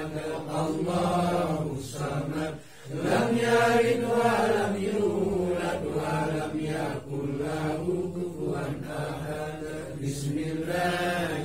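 Men's voices chanting an Arabic Islamic prayer recitation (tahlil dhikr) in long sustained phrases, with a brief pause for breath about two and a half seconds in.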